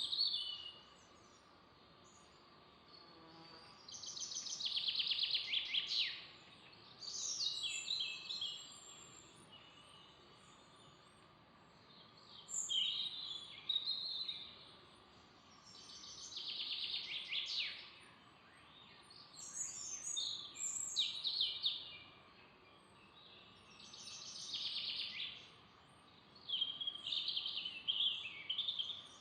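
Songbird singing in a forest: repeated high-pitched song phrases of one to two seconds each, made of quick falling trilled notes and coming every few seconds with short pauses between them. A faint steady hum runs underneath.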